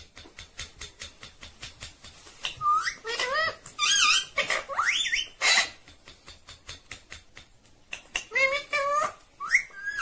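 Indian ringneck parakeet vocalizing close up: high, chattering, speech-like phrases with quick upward whistled glides, in two bouts, the first starting about two and a half seconds in and the second near the end. Before and between the bouts come runs of quick, light clicks.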